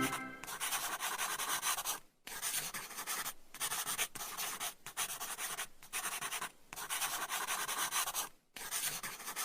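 A drawing tool rubbing across paper in repeated scratchy strokes, each run lasting a second or two with short pauses between, as a picture is coloured in.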